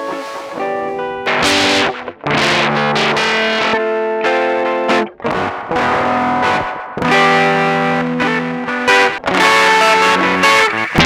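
Electric guitar playing a chord phrase, run through an Ableton Roar saturation preset that adds distortion. The chords change every second or two, with short breaks between phrases.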